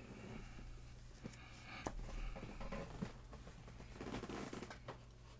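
Soft handling noise of sports cards being gathered off a tabletop mat, with rustling and a few light clicks, over a steady low electrical hum.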